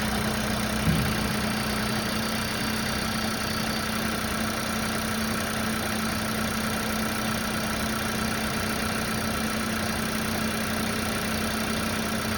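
Volkswagen Virtus GT's 1.5-litre turbocharged four-cylinder petrol engine idling steadily, with a steady hum and one brief soft thump about a second in.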